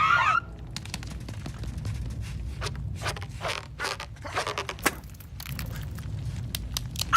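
Cartoon sound effects: a short squawk-like cry breaks off at the start, followed by scattered light clicks and scraping noises over a low steady rumble.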